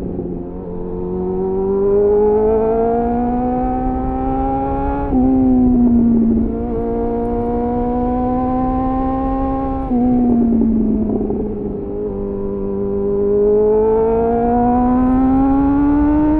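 Suzuki GSF 600 Bandit inline-four engine running through an aftermarket slip-on exhaust with a home-made dB killer. The note rises steadily under acceleration, drops sharply about five and ten seconds in, then climbs again. A steady rumble of wind and road noise runs underneath.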